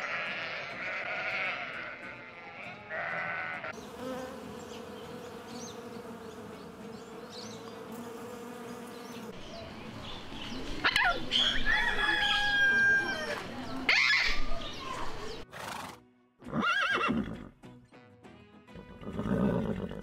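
A run of animal calls: sheep bleating in the first few seconds, then a parrot's loud squawks and whistles from about ten seconds in, and two short animal calls near the end.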